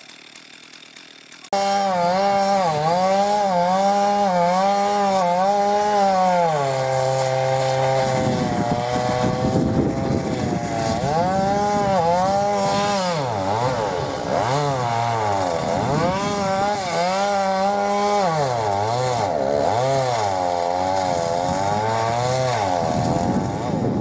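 Two-stroke chainsaw cutting into a thick eucalyptus trunk. It starts abruptly about a second and a half in, and its engine note rises and falls again and again as the chain bites and bogs under load. For a few seconds it sinks to a lower pitch while it labours in the cut.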